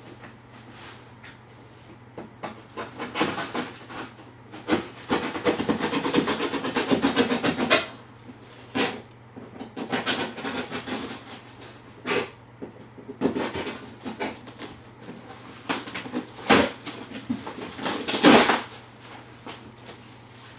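Cardboard shipping box being torn open and handled: irregular rustling, scraping and knocks, with a longer stretch of continuous tearing and rubbing about five to eight seconds in.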